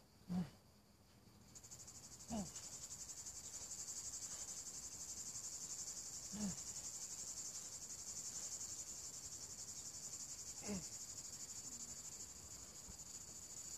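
Cicadas buzzing steadily in a fine rapid pulse, coming in about one and a half seconds in. About every four seconds there is a short falling voiced exhale from the kettlebell lifter, one with each long-cycle rep; these are the loudest sounds.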